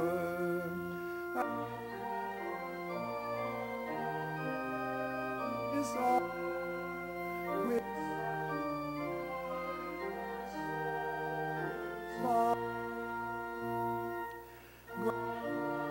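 Church organ playing slow, held chords that change about every second, with a brief break near the end before the next phrase.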